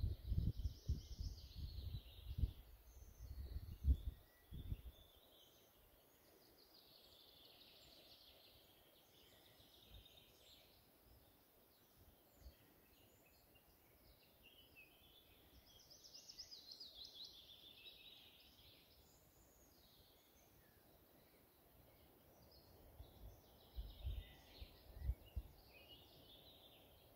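Faint, high birdsong in short phrases every few seconds, one falling in pitch about midway. A few low thumps come in the first few seconds and again near the end.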